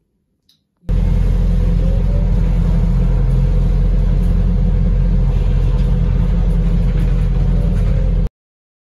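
Double-decker bus running, heard from inside on the upper deck: a steady, heavy low rumble of engine and road noise that starts abruptly about a second in and cuts off just before the end.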